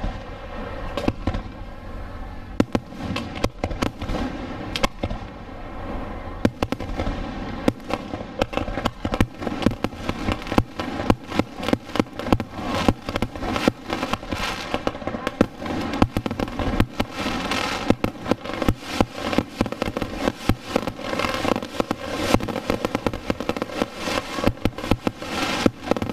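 Fireworks going off in a rapid, irregular series of bangs as shells launch and burst. The bangs come sparsely at first and grow much denser from about ten seconds in.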